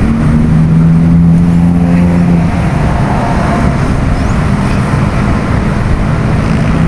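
Steady road traffic noise from a busy multi-lane toll road: tyres and engines running together, with one vehicle's engine hum standing out in the first two or three seconds and then fading.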